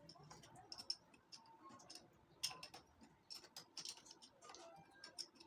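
Faint, irregular light clicks and taps, about a dozen, as of small parts and tools being handled.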